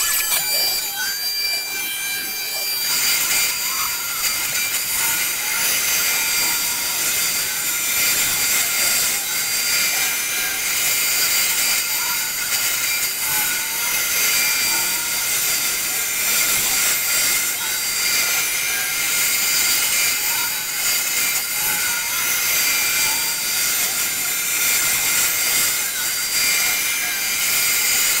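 CNC router spindle with a quarter-inch upcut bit running and cutting a profile through a wooden board: a steady high whine over a dense cutting hiss that thickens about three seconds in as the bit bites in.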